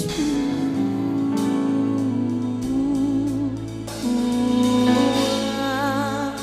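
Slow gospel music: long held melodic notes, some wavering in pitch, over a steady sustained accompaniment.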